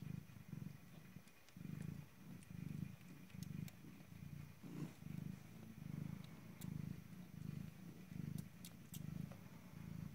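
Domestic mother cat purring while nursing her week-old kittens. The low purr swells and eases in an even rhythm, a little more than once a second. A few faint clicks sound here and there.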